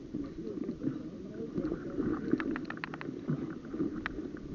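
Murmur of background voices, with a quick rattle of sharp clicks about halfway through and one more click near the end.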